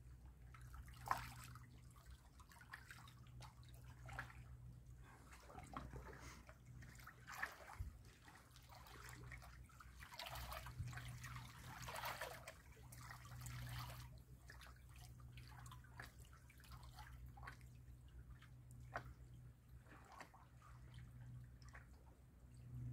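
Calm seawater lapping and trickling against shoreline rocks: faint, irregular little splashes and drips over a steady low hum.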